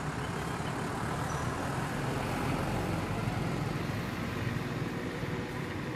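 Steady rumble of a road vehicle's engine going by, swelling a little in the middle and easing off near the end.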